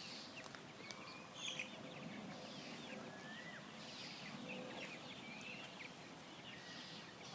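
Birds chirping in many short, high, whistled calls that glide up and down, over a faint outdoor background.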